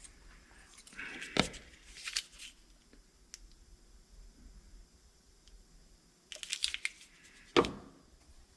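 Clicks, light rattles and two sharp knocks, one about a second and a half in and one near the end, from small metal parts and tools being handled while a Starrett magnetic base is reassembled.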